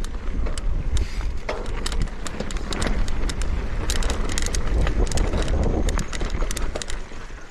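Mountain bike riding over a loose dirt-and-gravel trail: tyres crunching, with frequent sharp clicks and rattles from the bike, and wind rumbling on the microphone.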